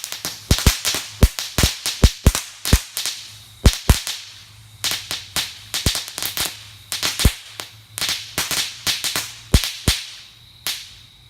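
Firework crackling stars mixed into a homemade sugar rocket, going off in sharp cracks one after another, about three a second at an uneven pace, as the lit rocket burns in place without lifting off.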